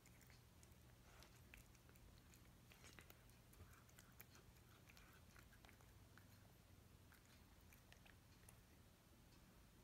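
A cat eating wet cat food from a dish: faint wet chewing and mouth clicks, stopping near the end as it lifts its head.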